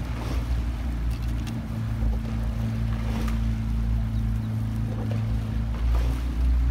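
Coaching launch's outboard motor running at a steady pace alongside a rowing shell, a low even hum over water and wind noise.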